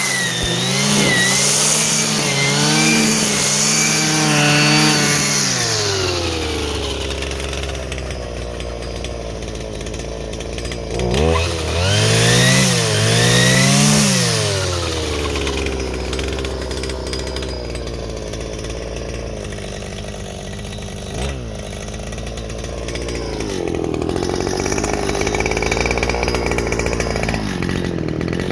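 Stihl FS 120 brushcutter's two-stroke engine running after a repair. It is revved unevenly at first, drops to idle, is blipped up and down twice, idles, and then is raised to a higher speed near the end.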